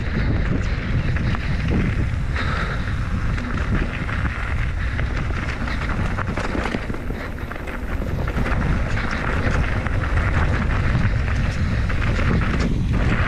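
Wind buffeting the microphone over the rolling of an enduro mountain bike descending a dirt trail at speed, with frequent knocks and rattles from the bike over rough ground.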